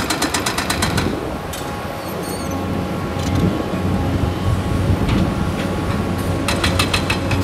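Heavy construction machinery at work: a diesel engine running steadily, with a rapid, even metallic clatter in the first second and again near the end.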